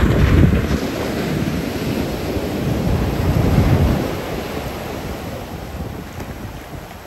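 Ocean waves breaking on the shore and washing up the sand, with wind buffeting the microphone. A wave crashes right at the start, another surges about three to four seconds in, and the wash then fades.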